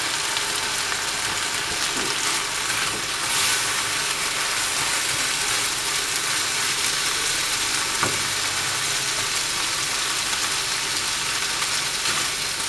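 Chicken, carrots and green capsicum sizzling steadily as they are stir-fried in a frying pan, with a few light knocks and scrapes of a spatula stirring them.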